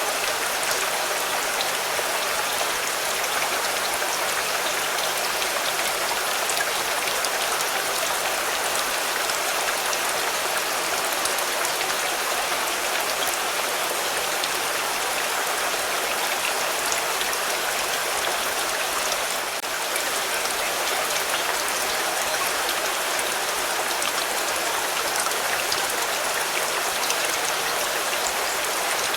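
Rain falling steadily on a car, a dense, even patter of drops.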